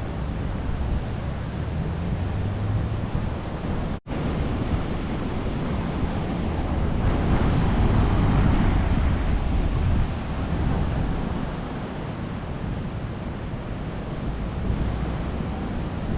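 4WD driving over soft beach sand: engine and tyre rumble mixed with heavy wind buffeting on the microphone, swelling louder for a few seconds midway, with a brief cut-out about four seconds in.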